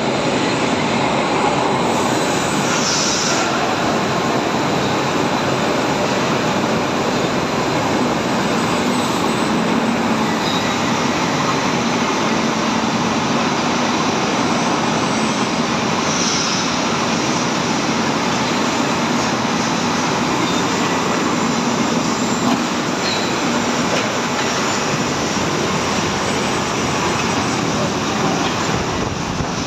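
Steady, loud, unbroken machinery din of a steel hot rolling mill for TMT bar running: drive motors, roller tables and rolling stands, with a faint steady hum underneath.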